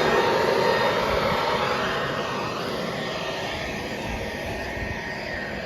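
Leaf blower running steadily with a rushing blast of air and a thin whine, easing off slightly about two seconds in.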